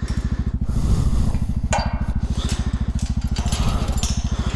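Motorcycle engine idling with a steady, even throb, while a steel chain clinks and rattles against a metal gate post as it is being fastened.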